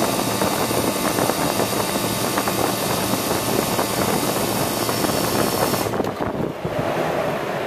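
Newly fitted single-phase, capacitor-run fan motor running steadily, with a constant rush of air and motor drone. The fan now runs after its start and run windings and capacitor were rewired. The high hiss drops away about six seconds in.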